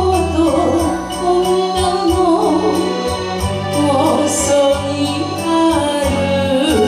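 A woman singing a Japanese ballad in a wavering, held melodic line over an instrumental backing track with a steady beat.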